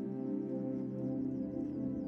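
Ambient background music of slow, sustained chords.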